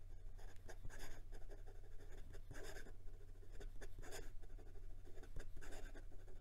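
Fine-nibbed Tianzi piston-filler fountain pen writing quickly across notebook paper: an irregular run of soft strokes of the nib on the page, a smooth nib with some drag or feedback but not scratchy. A steady low hum runs underneath.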